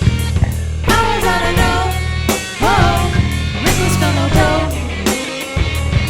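Punk rock band playing: a drum kit hitting steadily under guitar and bass, with a sung vocal line from about a second in until past the middle.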